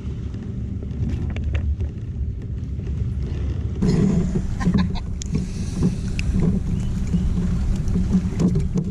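Steady low engine drone of a boat on the water. About four seconds in it grows louder and fuller, with scattered short knocks over it.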